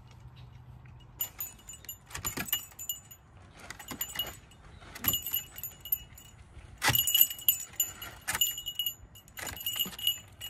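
Small metal pieces jingling and ringing against each other in about five shaken bursts, each a second or two long.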